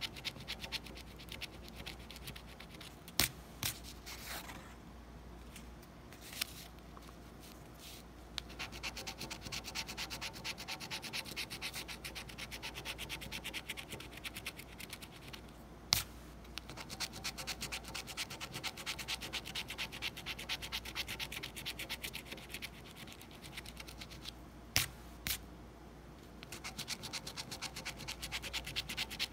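A coin scratching the coating off a paper scratch-off lottery ticket in rapid, even strokes, with a short lull a few seconds in. A few sharp clicks sound among the strokes.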